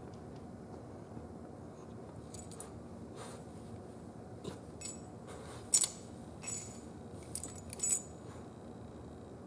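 Metal tag on a Great Pyrenees puppy's collar jingling in a few short clinks as she moves her head and shifts on the floor, loudest a little past halfway and again about two seconds later.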